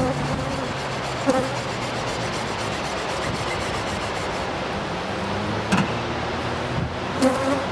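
Honey bees buzzing around an open hive, with wind on the microphone. Three short knocks sound through it, about a second in, near six seconds and near the end.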